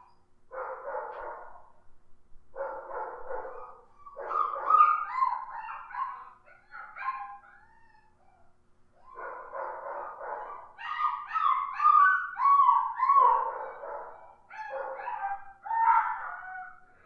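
Dog barking and yelping in repeated bursts, with high, pitch-bending yips among the barks and a short pause about halfway through.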